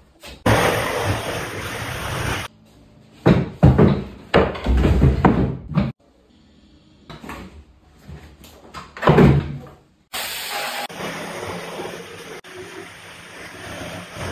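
Melamine kitchen cabinet carcasses being handled on a tiled floor: a run of knocks and scrapes, then quieter handling with one louder thump-scrape about nine seconds in, between stretches of steady background hiss.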